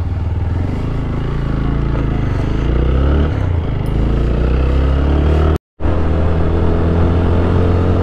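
Motorcycle engine pulling away from a stop and accelerating through the gears. Its pitch climbs and falls back at each shift. The sound cuts out completely for a moment a little over halfway through.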